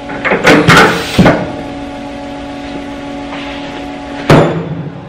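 Metal clunks and knocks as an edge-finder tool holder is seated and clamped into the spindle of a Haas TM-2 toolroom mill, over the machine's steady hum. A single loud sharp knock with a brief rattle comes about four seconds in.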